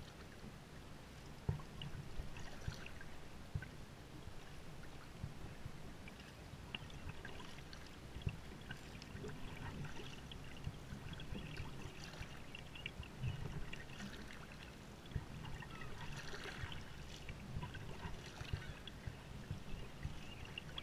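Sea kayak paddle strokes dipping into calm water, with water dripping and trickling off the blades and swishing along the hull. Splashes stand out every second or two.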